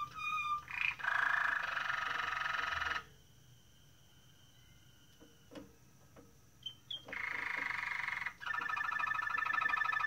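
Waterslager (Malinois) canary singing: a few whistled notes, then a dense rolling trill. About three seconds in it stops for a pause of about four seconds with a few faint clicks, then rolling, bubbling trills start again and keep going.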